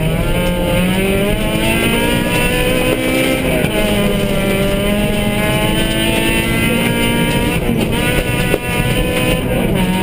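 Suzuki Swift rally car's engine, heard from inside the cabin, pulling hard at stage pace. The pitch climbs, drops briefly about four seconds in and again near eight seconds, then climbs again, over steady road noise.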